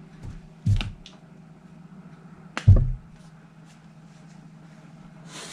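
Two sharp knocks about two seconds apart, the second the loudest, with a lighter tap just before the first, from objects handled at a table, over a steady low hum.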